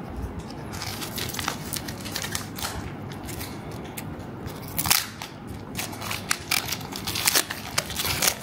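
Foil Pokémon Paradox Rift booster pack wrapper crinkling and crackling in the hands as it is worked at and pulled open along the top, a run of sharp crackles that is loudest about five seconds in and again near the end.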